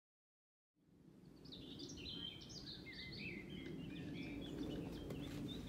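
Birds singing and chirping among trees over a steady low background rumble, fading in out of silence about a second in.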